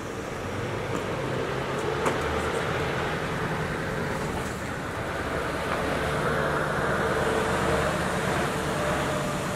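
Diesel engine of a heavy tractor unit running as it slowly hauls a low-loader trailer past, growing louder as it draws near and loudest a little past the middle.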